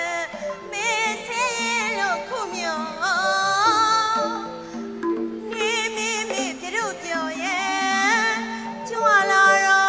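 A high voice singing a Burmese classical stage song in long, wavering, ornamented phrases with short breaks between them. Instruments underneath hold steady lower notes that shift from phrase to phrase.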